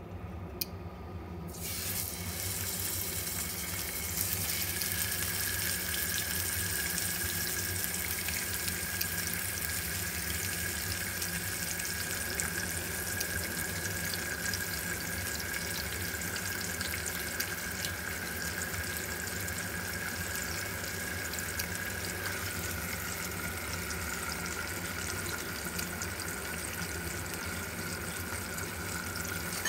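Fish pieces in spiced coating sizzling in hot oil in a frying pan. The sizzle starts about two seconds in and then runs steadily, with a faint steady high whine under it.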